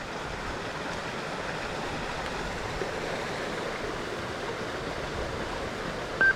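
Steady rush of water from a small waterfall, with a short, high electronic beep from a Gold Monster 1000 metal detector near the end.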